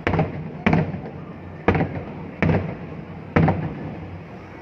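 Aerial fireworks bursting overhead: five sharp bangs in about three and a half seconds, unevenly spaced, each followed by a rumbling echo that dies away.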